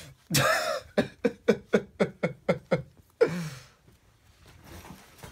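A person laughing: a short vocal outburst, then a run of about nine quick, evenly spaced 'ha' pulses, ending in a falling breathy sound.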